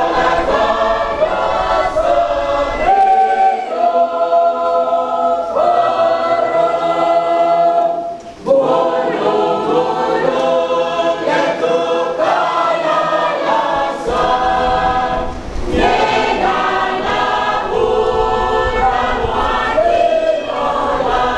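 A large choir singing in harmony, holding long chords that shift from one to the next. There is a short break between phrases about eight seconds in.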